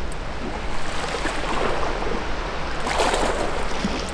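Sea water washing against a rocky shore, with a stronger wash about three seconds in.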